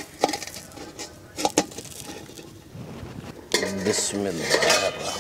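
Steel plate lid clinking and scraping on an iron karahi as it is set in place over the chicken to steam, with a few sharp metal clicks in the first two seconds. A person's voice comes in briefly near the end.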